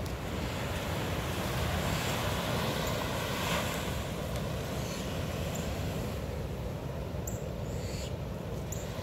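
Surf washing on the shore, swelling and fading about three to four seconds in, over a steady low rumble of wind on the microphone.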